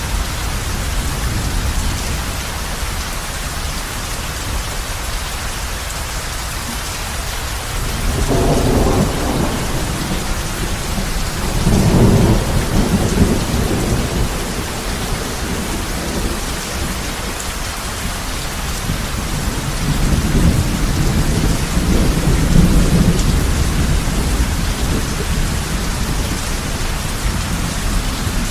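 Heavy rain falling steadily on a roof, with thunder rumbling low several times: about a third of the way in, again shortly after, and once more about three quarters through.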